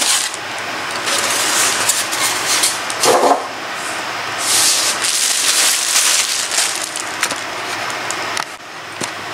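Continuous rustling and rubbing handling noise with many small crackles, and a brief vocal sound about three seconds in.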